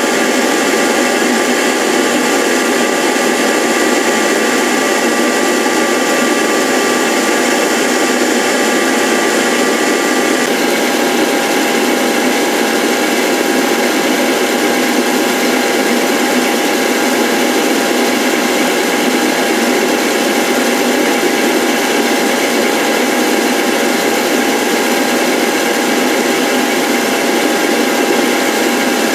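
Lathe-mounted power tool motor running steadily through a slow cutting pass on a wooden disc, a continuous whirring noise with steady tones. The tones shift slightly about ten seconds in.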